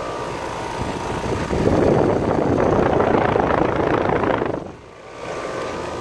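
Outdoor unit of a Trane XB13 5-ton heat pump running in cool mode: a steady hum from its Alliance scroll compressor and Genteq condenser fan. A loud rush of air swells up about a second and a half in and lasts about three seconds, then the sound dips suddenly for a moment before the steady hum returns.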